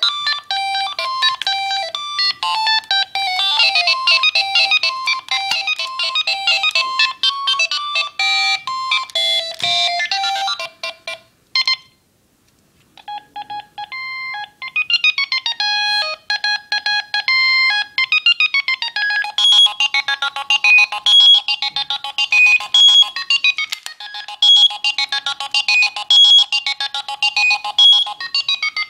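Philips Fisio 625 mobile phone playing its built-in ringtones: a thin, high-pitched electronic melody that ends about eleven seconds in, a short silence, then a different repeating tune starts.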